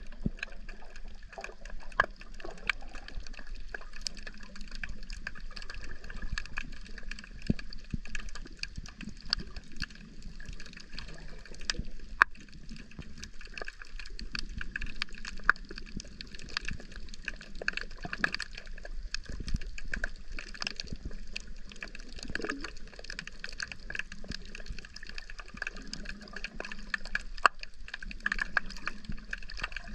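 Sound recorded underwater: a steady wash of water noise with a dense, irregular crackle of small clicks running throughout.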